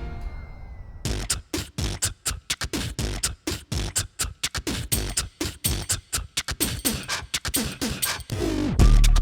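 Background music: a beatbox-style track of rapid percussive mouth clicks and hits, with a heavy bass beat coming in near the end.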